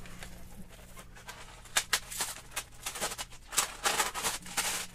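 Clear plastic wrapping crinkling and rustling as a motorcycle helmet face shield is handled and unwrapped, in irregular bursts from about two seconds in, over a low steady hum.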